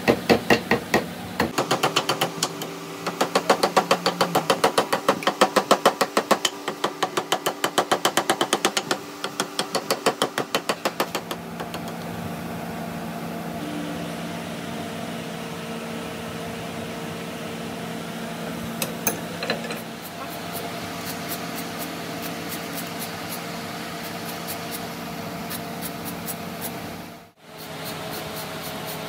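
Hammer blows on metal, about three to four a second, for roughly the first eleven seconds, then a steady machine hum with a held tone that cuts out briefly near the end.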